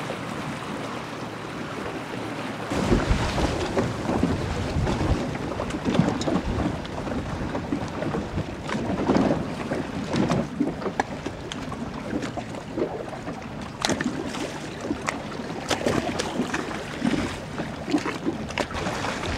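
Wind buffeting the microphone over choppy water splashing around a small boat; the wind rumble gets louder about three seconds in.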